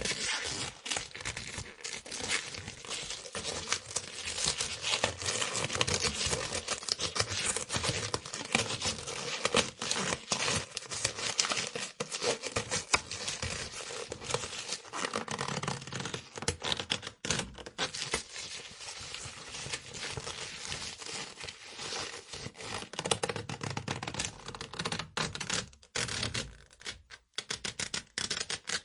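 Rubber being stretched and pulled: a dense crackling, creaking rubber-friction texture made of many small clicks, which turns sparser and more broken up over the last few seconds.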